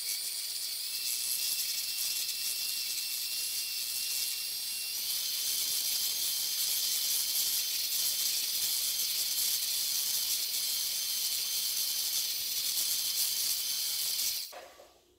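Electric hand mixer running on high, its beaters whipping chilled heavy cream in a metal bowl toward stiff peaks: a steady high whir with a thin whine that steps up in pitch about five seconds in. It stops shortly before the end.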